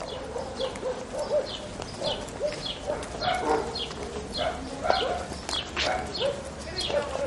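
Birds chirping: a quick, continuing run of short high falling chirps, with lower calls beneath them.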